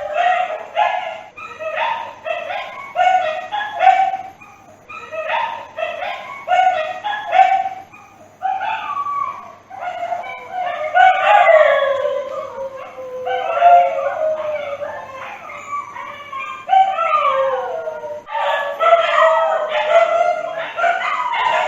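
A dog howling and yelping. Runs of short, high yips come at the start and again near the end, and in the middle longer wavering howls slide down in pitch.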